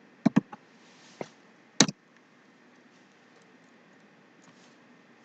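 A few sharp computer keyboard key clicks: a quick pair, two fainter taps, then one more sharp click about two seconds in.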